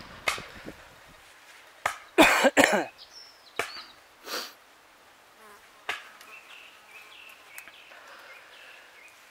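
A person coughs a few times about two seconds in, the loudest sound here, amid scattered scrapes and rustles of gloved hands handling a freshly dug glass bottle and its soil.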